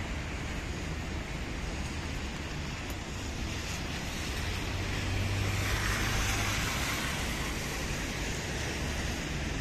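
Car driving on rain-soaked asphalt, its tyres hissing on the wet road, over a steady wash of wet-street traffic noise. The hiss swells about halfway through and eases off near the end.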